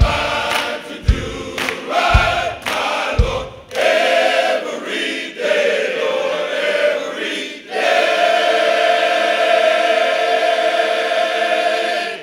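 Men's gospel choir singing in full harmony, with low drum hits about once a second over the first few seconds, then holding one long closing chord that cuts off sharply near the end.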